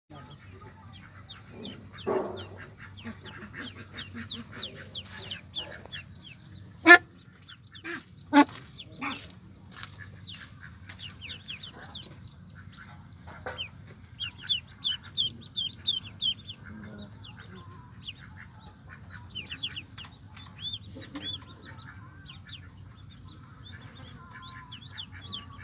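Newly hatched ducklings peeping in many short, high chirps, with scattered lower calls from the sitting ducks. Two sharp knocks stand out, about 7 and 8.5 seconds in, over a steady low hum.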